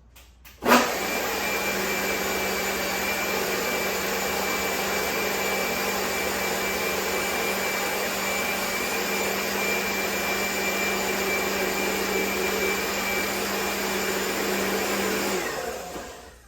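Electric blender running steadily as it purees steamed apples into applesauce. It starts abruptly about a second in with a steady hum and a thin whine, and winds down near the end.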